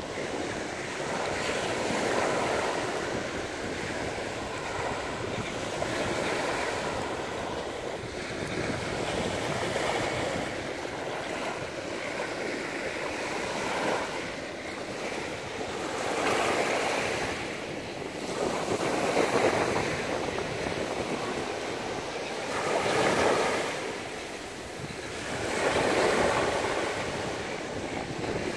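Small sea waves breaking and washing up onto a sandy shore, a steady rushing surf that swells louder every few seconds as each wave comes in.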